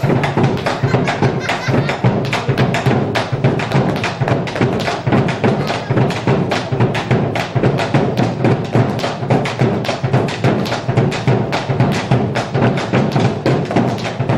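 Argentine folk music with a fast, steady percussive beat of sharp strikes, about four a second.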